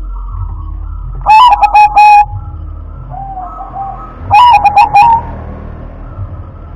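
Zebra dove (perkutut) cooing loudly: two bouts of quick, rolling staccato coos, the first about a second in and the second about four seconds in, over a steady low hum.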